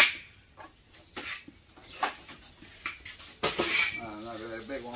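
Metal clanks and knocks from a copper-aluminium radiator coil being pried apart by hand. About three and a half seconds in there is a rasping scrape of sheet metal being torn off, followed by a wavering whine.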